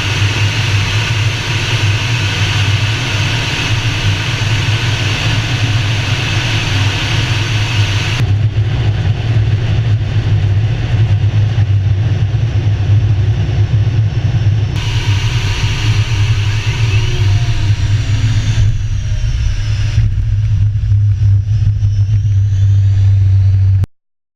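Tornado GR4 twin RB199 turbofan engines running in a steady, loud jet noise, cut together from several shots, with faint rising and falling pitch sweeps as a jet passes. The sound cuts off suddenly near the end.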